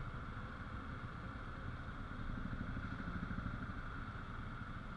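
Motorcycle engines idling in traffic stopped at a red light, a steady low rumble that grows a little louder for a second or two in the middle.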